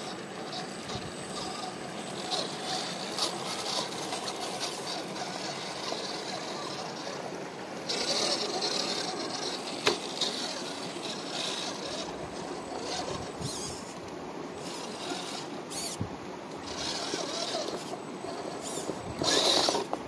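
Redcat Gen8 RC rock crawler's electric motor and gears whirring as it climbs over rock, with its tyres scraping and scrabbling. The sound gets louder for a couple of seconds about eight seconds in and again near the end, with one sharp click about ten seconds in.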